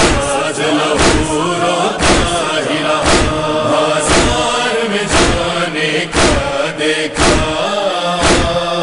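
Nawha chorus: several voices chanting a drawn-out lament refrain over a steady thump about once a second.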